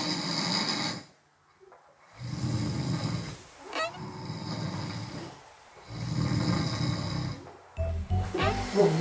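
A man snoring in deep sleep: three long snoring breaths, a few seconds apart, with quiet pauses between them. Background music and a comic rising sound effect are laid over it.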